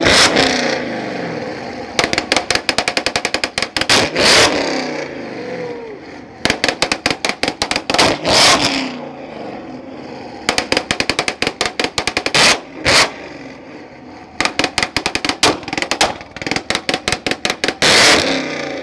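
Chevrolet Camaro revving against a two-step launch-control limiter: five runs of rapid exhaust pops and bangs, about ten a second, with a louder rev surging between the runs.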